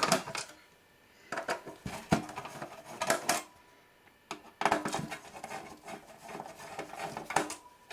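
A screwdriver backing out the small screws of a metal tuner cover on an avionics receiver, heard as several short bursts of metallic clicking and scraping, with clinks of loose screws and metal parts.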